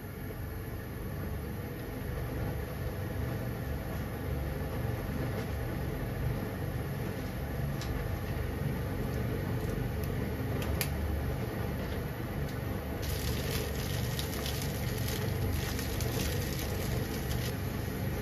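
A pan of water heating on a gas burner: a steady low rumble that grows louder as the water nears the boil. There is a brief plop about eleven seconds in as garlic drops into the water, and from about thirteen seconds the crackling, bubbling hiss of water at a full boil.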